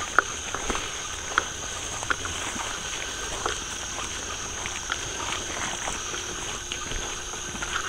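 Steady high-pitched chorus of night insects, with scattered footsteps on a dirt driveway.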